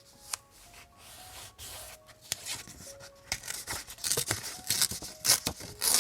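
Paper being handled for journal decorating: rustling and scraping with sharp snips and clicks, sparse at first and busiest over the last two seconds, under soft background music.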